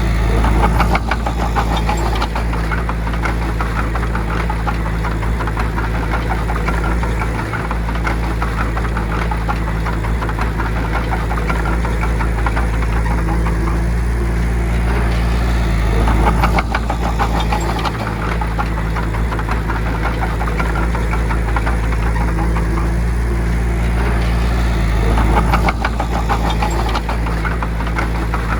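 Bulldozer's diesel engine running steadily with a rapid clatter, swelling louder briefly about a second in, about halfway through, and near the end.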